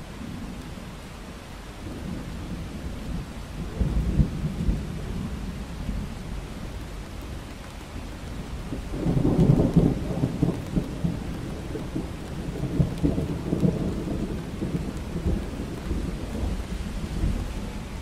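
Thunderstorm: steady rain with rolling thunder. A rumble comes about four seconds in, and a louder, long rumble starts about halfway and rolls on for several seconds.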